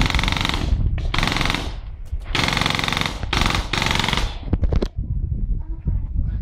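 Paintball markers firing rapid strings of shots, four quick bursts in the first four and a half seconds, then a few separate shots.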